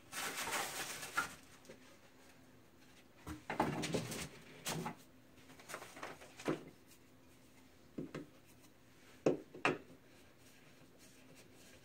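Flat-pack desk parts being handled on a particleboard base: a rustling scrape in the first second, then scattered knocks and taps, with two sharp clicks near the end, as a tube and panels are set down and fitted.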